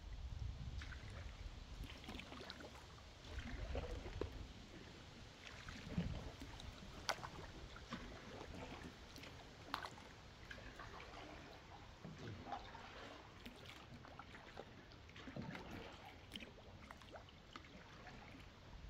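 Faint canoe paddling on calm water: the paddle dipping and drawing with soft splashes and drips, and a few light sharp knocks.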